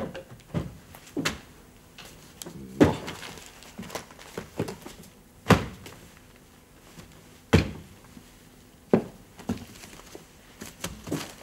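Irregular knocks and thumps of things being moved and set down on a wooden desk while papers are shuffled through, with three louder knocks about two seconds apart in the middle.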